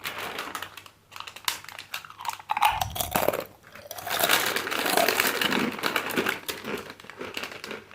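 A crunchy chip being bitten and chewed close to the microphone: a dense run of crisp crunches, loudest in the middle.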